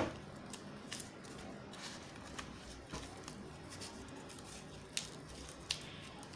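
Small homemade paper fidget toys being handled and pressed: a sharp click at the very start, then a few scattered soft clicks and taps over a low steady hum.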